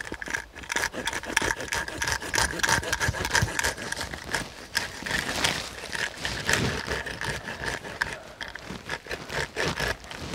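Spruce boughs being pulled and broken off a fallen spruce by hand: needles rustling and twigs scraping and cracking in quick, irregular bursts.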